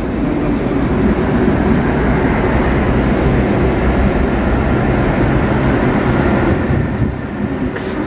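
Road traffic passing: a heavy lorry and cars driving by, a steady noise that eases a little near the end.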